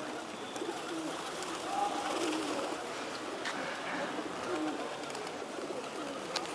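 A large flock of feral pigeons cooing, many low calls overlapping, with a couple of sharp clicks.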